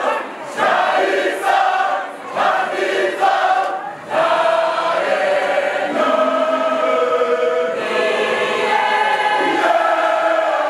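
Large mixed choir of women and men singing together. Short phrases with brief breaks for the first four seconds, then a long held passage.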